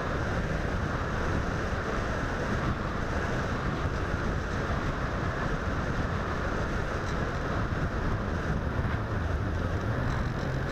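Steady wind rush on the small onboard camera microphone of a radio-controlled plane in low, fast flight, with a low drone from the plane's motor and propeller at the start and again near the end.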